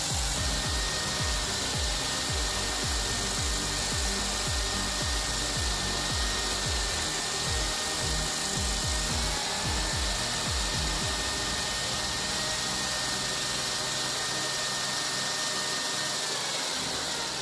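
Bandit 2650 stump grinder's cutter wheel grinding into a large conifer stump, its engine running under load with a steady high whine. Irregular low thuds come as the wheel bites, easing off about halfway through.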